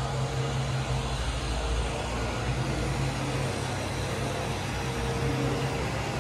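A steady low mechanical hum with an even hiss of background noise.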